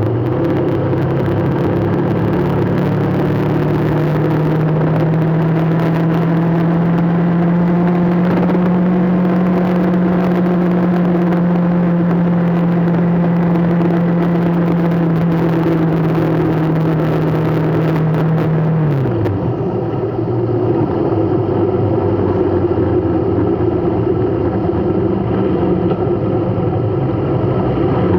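Motor vehicle engine running at a steady speed with road noise. Its hum holds one pitch, then drops about two-thirds of the way through, as the vehicle eases off.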